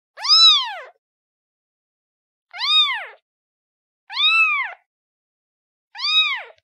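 Kitten meowing to call its mother: four separate high meows about a second and a half apart, each rising and then falling in pitch.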